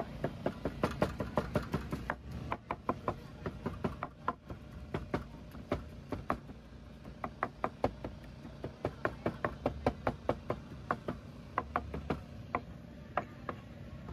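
Meat cleaver chopping braised pork on a plastic cutting board: a rapid run of sharp knocks, several a second, with a short pause about four seconds in.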